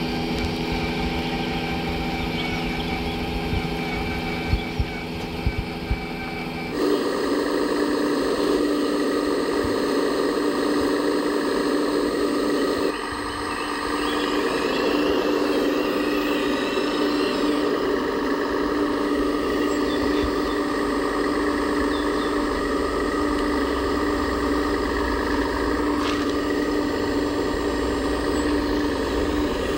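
Diesel engine sound from radio-controlled scale models' sound units running steadily. The RC Mercedes Actros truck runs first, with a few sharp clicks around four to six seconds in. About seven seconds in it changes to the steady engine sound of an RC Liebherr 970 excavator loading the truck.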